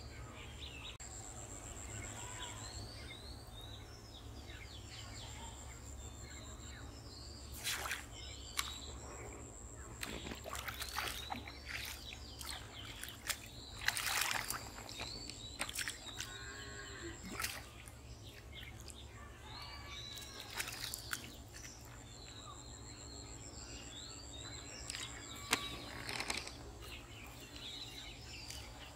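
Outdoor pond-side ambience with birds chirping throughout. About halfway through, a hooked fish splashes loudly at the water's surface as it is pulled in, with a few other brief splashes and knocks.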